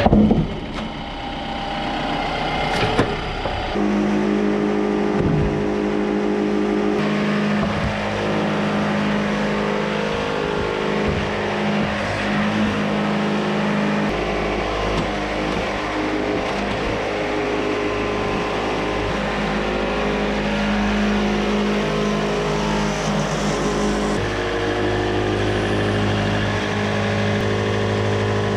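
Engines running steadily: a tractor at the start, then the Wood-Mizer portable sawmill's engine as the mill is worked. The engine note changes abruptly a few times, with a few sharp knocks in the first three seconds.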